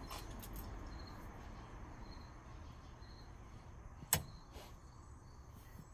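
A sharp mechanical click about four seconds in, with a weaker click just after, as a control on the lower dashboard of a Pierce-Arrow limousine is worked by hand, over faint low background noise.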